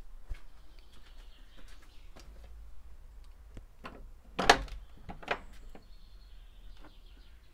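Twisted iron ring handle of a heavy iron-studded wooden church door turned, the latch lifting with a loud sharp clank about halfway through, then a second clank as the door comes open. Small birds chirp faintly in the background.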